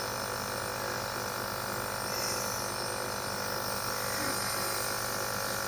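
A small electric nebulizer compressor running with a steady buzz that does not change.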